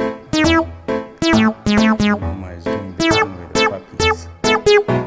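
Background music: a keyboard melody of short, ringing notes, about two to three a second.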